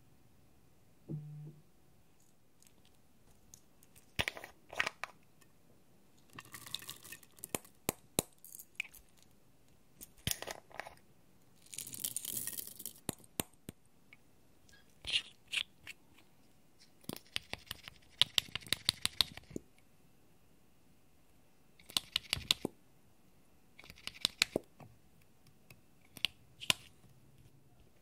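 Small plastic bottles and containers being handled: caps clicking open, and sprinkles and beads rattling as they are shaken out onto clear slime. The clicks and rattles come in short groups with quiet gaps between, the longest and densest group a rapid run of clicks.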